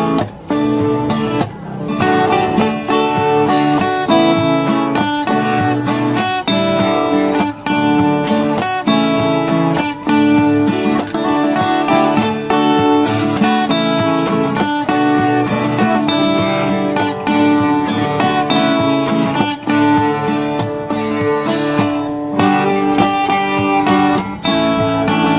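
Instrumental music led by strummed acoustic guitar, played at a steady level.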